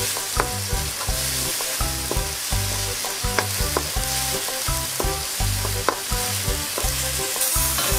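Minced pork sizzling in a little broth in a nonstick wok, stirred with a wooden spatula that now and then clicks sharply against the pan.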